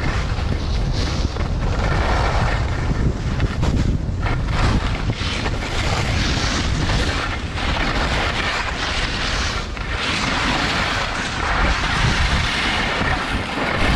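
Wind buffeting the helmet camera's microphone at skiing speed, a loud, gusting low rumble. Over it runs the shifting hiss and scrape of skis carving on packed snow, swelling and fading with each turn.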